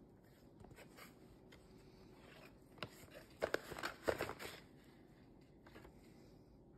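Paper rustling and crinkling as a kraft-paper mailer envelope is opened and cards are slid out of it, with scattered small clicks and the loudest crinkles in a short cluster around the middle.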